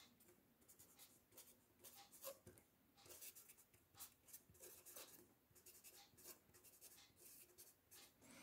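Pencil writing on paper: faint, quick scratching strokes as a line of handwriting is written.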